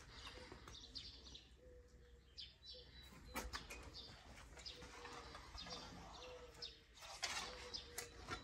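Faint birdsong: small birds chirping now and then. A few light clicks and knocks from a bow and a hand-held bow scale being handled, the clearest about three and a half and seven seconds in.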